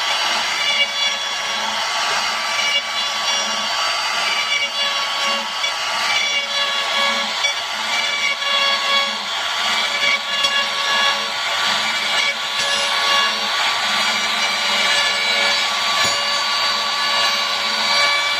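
Maktec trim router running at full speed while its bit cuts a hinge recess into the edge of a wooden door: a steady high-pitched whine with the hiss of wood being cut.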